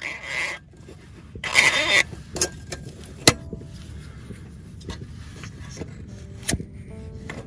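Two short bursts of hiss, one at the start and one about one and a half seconds in, then several sharp clicks or knocks over a steady low rumble.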